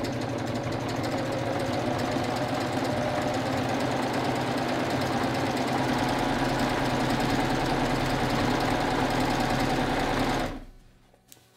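Serger (overlock machine) running steadily at full speed, stitching elastic onto the edge of a sheet, then stopping suddenly about ten and a half seconds in.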